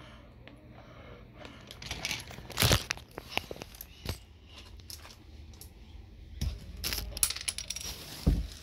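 Handling noise: irregular clicks and knocks as the camera and small plastic pieces are moved about, the sharpest about three seconds in and just before the end.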